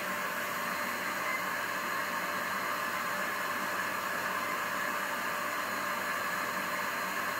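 Steady, even hiss of compressed air running a small homemade oscillating engine model, with the air compressor that feeds it running.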